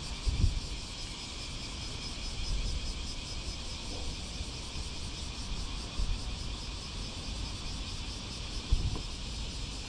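Steady outdoor background hiss, with a few dull low bumps on the microphone near the start, around the middle and near the end.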